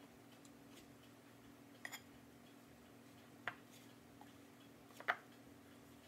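A spatula knocking and scraping against a glass mixing bowl while stirring bread dough: a few short clicks, a double one about two seconds in and the loudest near five seconds, over a steady low hum.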